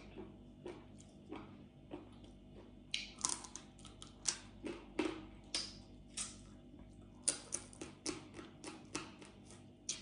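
Close-miked eating sounds of crab and other seafood: shell pieces cracking, with chewing and wet mouth clicks, as a run of irregular sharp clicks and crackles that grows busier about three seconds in.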